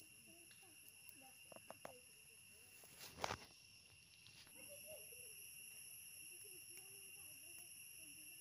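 A quiet outdoor background of a steady, high insect trill, which grows a little louder about halfway through. A single sharp knock comes just after three seconds, with faint murmuring underneath.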